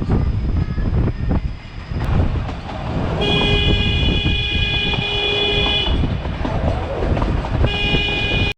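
Diesel locomotive horn on a Nilgiri Mountain Railway train, sounding one long blast of about two and a half seconds and a second blast near the end, over the rumble of the moving train.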